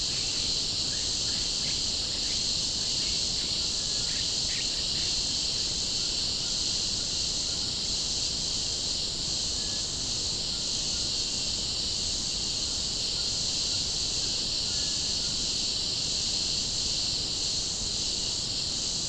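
Steady, high-pitched chorus of rainforest insects, with a faint regular pulse about every two thirds of a second. A few faint short calls are heard in the first five seconds.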